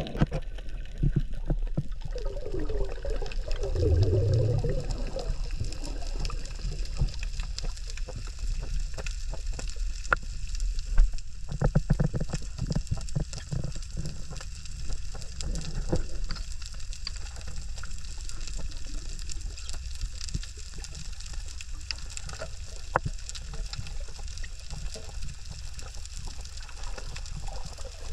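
Underwater sound heard through a camera underwater: a steady muffled wash of water with many small crackling clicks, and a short wavering low sound a few seconds in.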